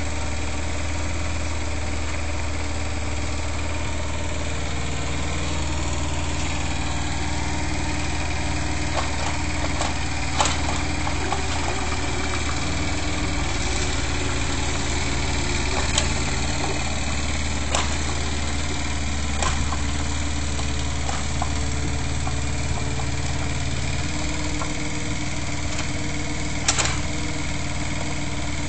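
Yanmar mini excavator's small diesel engine running steadily while it digs. Its note shifts about four seconds in and again near the end as the hydraulics take load, with a few sharp knocks, the loudest near the end.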